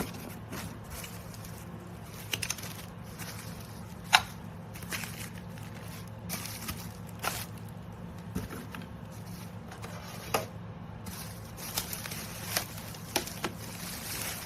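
A steady low hum with scattered clicks, crackles and scrapes over it, the loudest click about four seconds in.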